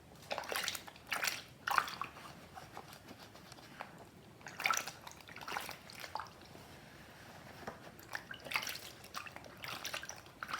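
A soaked plush toy being hand-washed in water: wet fabric squelching and water splashing and dripping in three short spells.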